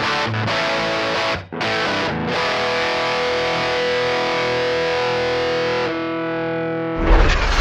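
Closing music led by a distorted electric guitar, with a short break about a second and a half in and then a long held chord. Near the end it changes abruptly to a louder, deeper sound.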